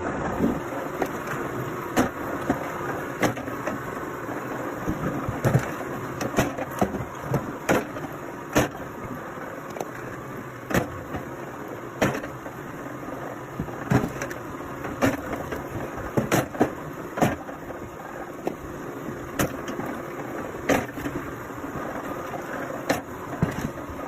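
Engine-driven firewood splitter running steadily, with sharp cracks and knocks every second or so as logs are split.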